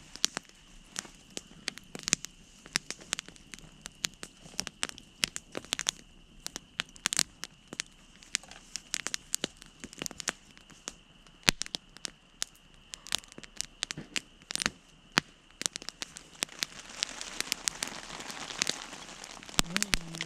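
Wood campfire crackling, with dozens of sharp, irregular pops and snaps. A faint steady high tone runs through most of it, and a soft hiss builds near the end.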